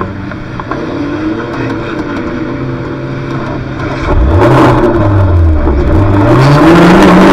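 Junior banger's engine running steadily, then about four seconds in it gets much louder and revs up, drops back briefly and climbs again to a higher held pitch as the car accelerates away.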